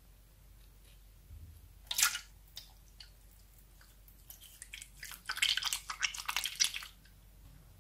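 Crunchy slime being squeezed and pressed by hand: one short squelching burst about two seconds in, then a dense run of quick crackles and pops for about two seconds.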